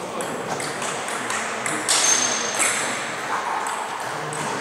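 Table tennis balls clicking against tables and bats, a scattered, irregular run of light clicks. About two seconds in comes one louder sharp click with a brief high ring.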